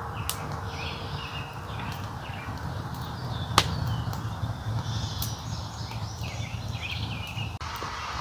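Wood campfire burning over a steady low rumble, with one sharp pop about halfway through; small birds chirp in the background.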